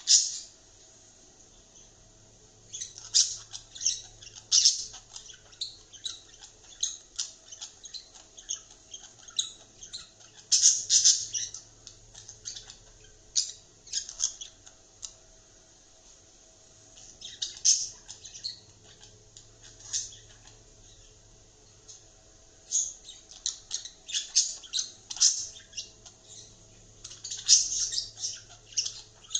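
Budgerigar chattering and squawking in clusters of short, sharp, high-pitched calls, with pauses of a second or two between clusters.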